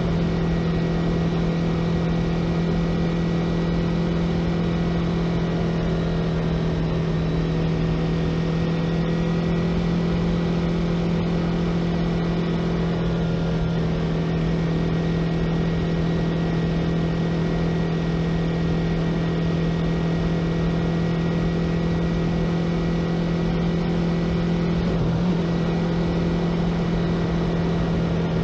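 Yamaha YZF-R3's 321 cc parallel-twin engine running at a steady cruising speed, its note holding an even pitch, with wind and road noise from riding.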